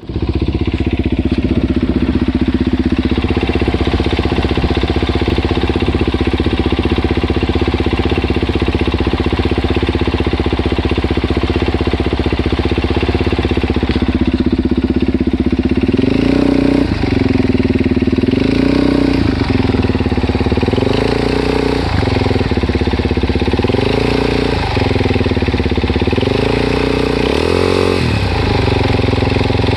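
Suzuki DR-Z400S single-cylinder four-stroke engine idling with a ticking noise, its cam chain and cam chain guides newly replaced. Around the middle the throttle starts being blipped, a short rise and fall in revs about every two seconds.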